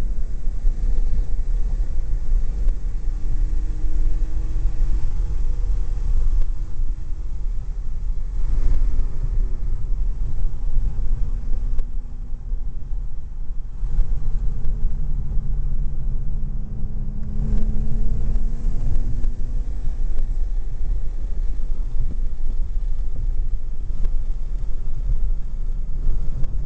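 Supercharged BMW E46 M3's straight-six running at speed on track, its note slowly rising and falling, under a heavy low rumble of wind and road noise.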